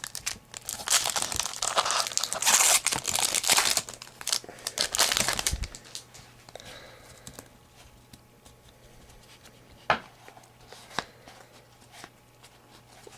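Wrapper of a trading-card pack being torn open and crinkled for about the first six seconds, then quieter card handling with a few light clicks.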